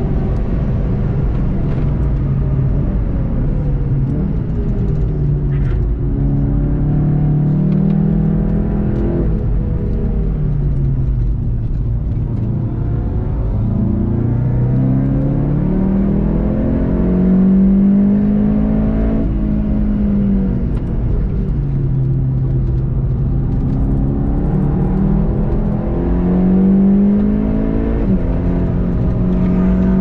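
Volkswagen Golf 7.5 GTI TCR's turbocharged 2.0-litre four-cylinder engine, heard from inside the cabin, revving hard through the gears. Its pitch climbs as the car accelerates and drops as it brakes and downshifts, several times over, with a steady rumble of tyres and road beneath.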